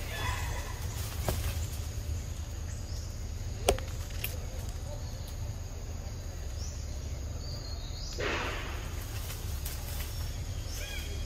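Macaques moving through tree branches: a sharp snap about four seconds in and a burst of rustling leaves near eight seconds, over a steady low rumble of wind, with a few faint high chirps.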